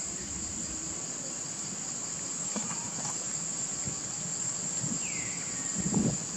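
Steady, high-pitched chorus of insects trilling without a break. About five seconds in there is a short falling whistle, and a few soft low thumps near the end are the loudest sounds.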